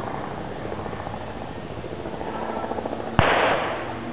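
Water-cooled .303 Vickers machine gun firing a short burst of blanks, which starts suddenly about three seconds in after a stretch of faint background noise.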